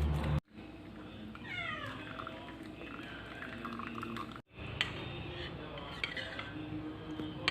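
A cat meowing once, a call about a second in that falls steeply in pitch, over faint background noise with a few light clicks.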